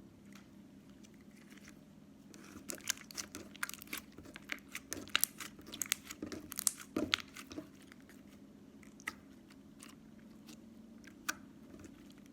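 Slime being squished and poked by hand, giving a quick run of crackling clicks and pops for a few seconds, then a couple of single pops near the end, over a steady low hum.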